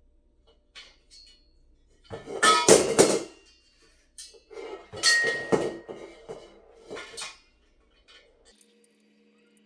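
Metal parts of a flat-pack computer desk clanking and rattling against each other as they are handled, in two loud bouts with sharp knocks and some ringing. A faint low hum starts near the end.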